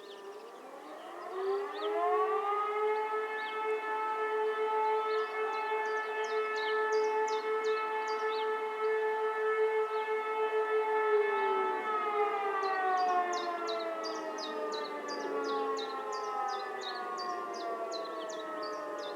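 Several E57 electromechanical motor sirens sounding the fire alarm signal. They wind up in rising pitch over about two seconds, hold a steady multi-pitched tone for about ten seconds, then wind down with slowly falling pitch. Short high chirps sound above them.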